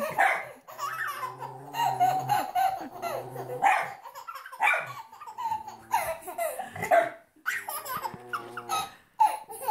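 A baby laughing in repeated bursts while a small dog barks over and over.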